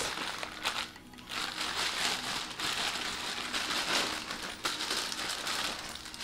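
Clear plastic wrapping crinkling and rustling as a small package is handled and opened by hand.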